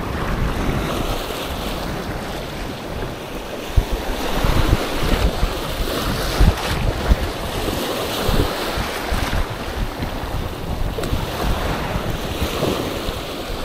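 Sea surf washing onto the beach, with wind buffeting the microphone in gusts.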